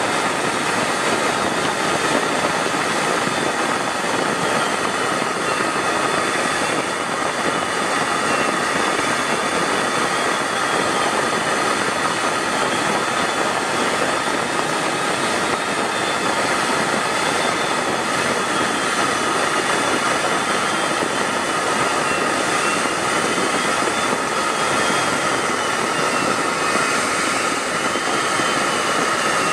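Steady jet aircraft noise in flight: an even rushing sound at constant loudness, with a faint high whine that slowly wavers in pitch.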